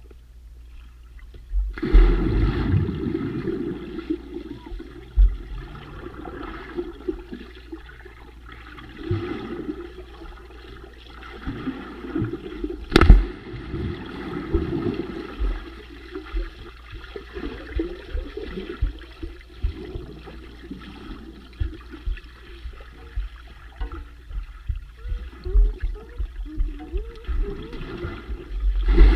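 Water heard by a submerged camera: muffled gurgling and churning of bubbles that starts suddenly about two seconds in and comes in uneven surges. About 13 seconds in comes a sharp knock as a person plunges into the water, followed by a rush of bubbles.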